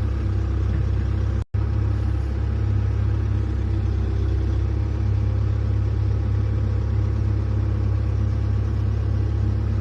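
Volvo EC210 excavator's diesel engine running steadily, a deep even rumble, with a sudden brief cut-out about a second and a half in.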